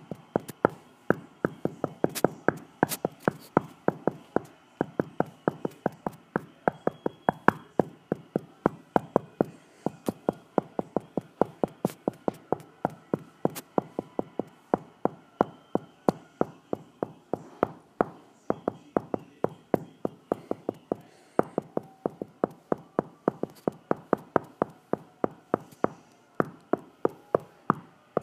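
A steady run of sharp taps or clicks, about three or four a second, continuing throughout.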